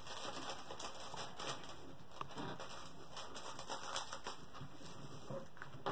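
Hands smoothing and pressing a clear plastic cover film down onto a sticky diamond painting canvas: faint rustling, rubbing and light crackling of the film.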